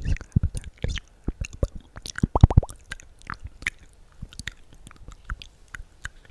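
Close-miked ASMR mouth sounds: irregular wet clicks and smacks, with a quick cluster of them about two and a half seconds in.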